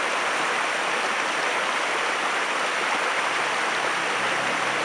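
Flowing water rushing steadily.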